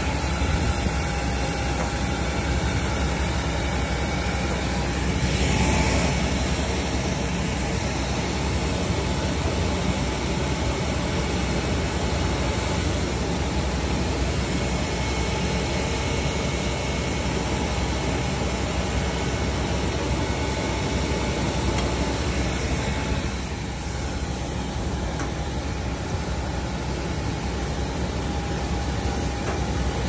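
Steady turbine noise on an airport ramp: a continuous rush with a thin high whine. It swells briefly about six seconds in and eases slightly later.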